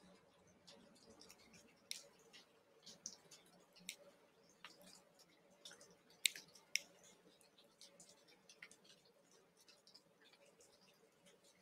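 Near silence: a faint steady hum with sparse, irregular faint clicks, two slightly sharper ones a little past the middle.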